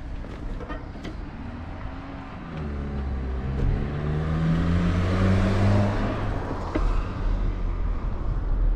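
A car drives past close by, its engine note rising as it accelerates. It is loudest about five to six seconds in, then fades.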